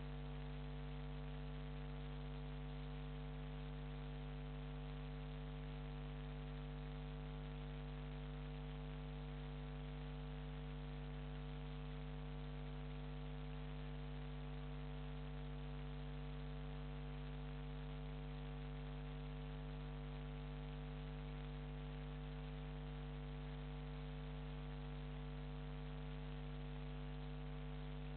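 Steady electrical hum with a layer of hiss, unchanging, the kind of mains hum picked up by a cheap webcam microphone.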